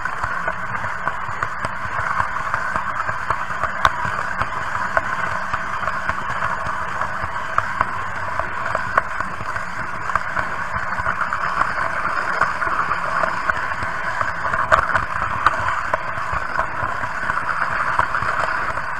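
Märklin H0 model train running along the layout: a steady whir from its motor and drive, with a stream of small clicks from the wheels rolling over track joints and points.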